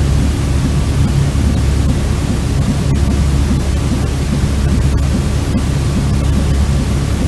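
Steady white noise for soothing a baby to sleep, deep and rumbling with most of its weight in the low end, and a few faint clicks.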